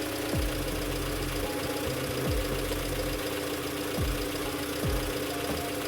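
Dacia Sandero engine idling with a steady whine from its power steering pump, which has just been topped up with fluid and is being bled. A low sound drops in pitch several times.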